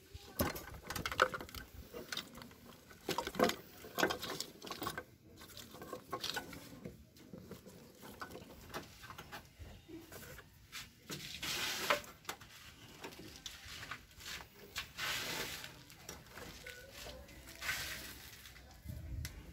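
Irregular sharp clicks and rustling as jumper wires in a car's wiring harness are snipped with cutters and pulled free, with longer scraping rustles now and then.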